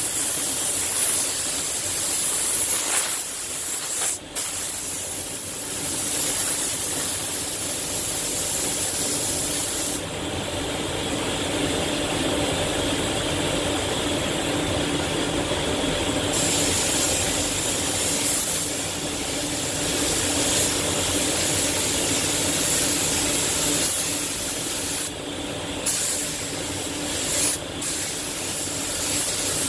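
Iwata compressed-air spray gun hissing as it sprays the car, in long passes broken by short pauses: a brief one about 4 s in, a longer lull about 10 s in, and a few quick breaks near the end. A steadier, lower rush of air carries on through the pauses.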